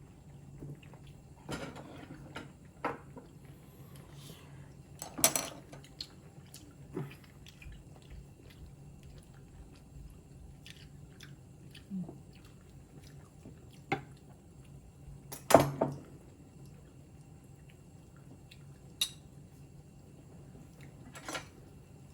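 Cutlery and dishes clinking now and then at a dinner table, a sharp knock every few seconds, over a low steady hum.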